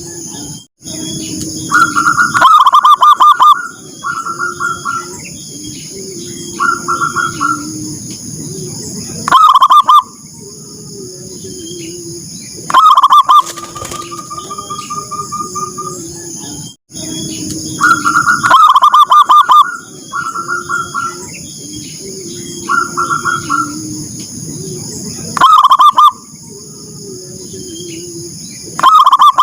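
Zebra doves (perkutut) cooing: bouts of quick repeated notes, with lower cooing between them. The same sequence comes round again about every 16 seconds, as in a looped recording.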